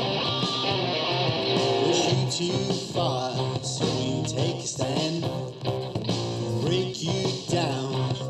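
Guitar-driven rock music playing, with a singing voice in places.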